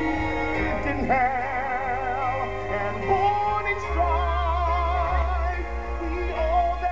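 Live musical theatre song heard through a stage PA: a male soloist sings with wide vibrato over backing music. The bass comes in heavier about four seconds in.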